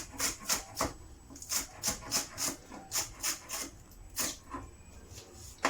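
Knife roughly chopping fresh coriander: a run of quick, crisp strokes, a few a second, broken by short pauses.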